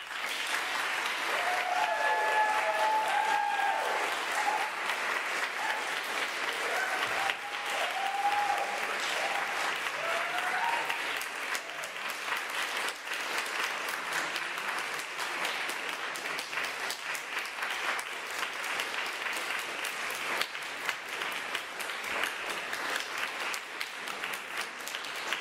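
Audience applauding, breaking out suddenly and going on steadily, with a few whoops and cheers from the crowd in the first ten seconds or so.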